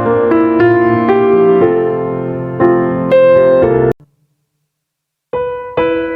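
Slow piano music with single notes struck and left to ring. About four seconds in it cuts off abruptly to dead silence, and the piano starts again about a second later.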